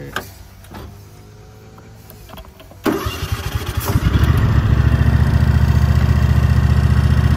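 Single-cylinder petrol engine of a Rabbit Mower ride-on lawn mower being started. After a few faint clicks it cranks about three seconds in, catches within about a second, and settles into a loud, steady run with an even low pulse.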